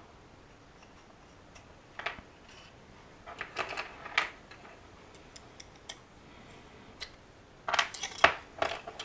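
Small hard clicks and taps of resin figure parts being pulled apart, handled and set down on a cutting mat. The sounds come in scattered clusters, the loudest group near the end.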